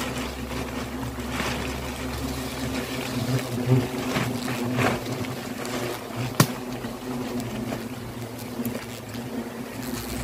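Steady low buzzing drone of a mass of black-backed hornets flying around their disturbed nest, with some rustling and one sharp snap about six seconds in.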